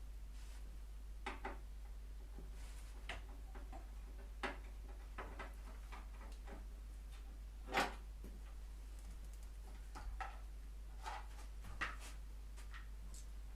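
Scattered clicks and light knocks of hand tools and metal parts being handled in a workshop, about one every second or two, with one louder knock about eight seconds in, over a steady low hum.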